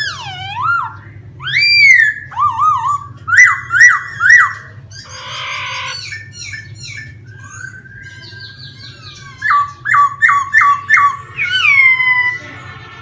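Laughingthrush singing a loud, varied song of clear whistles that slur up and down, some repeated in quick runs of three or four, with a brief harsh rasp about five seconds in and a long falling note near the end.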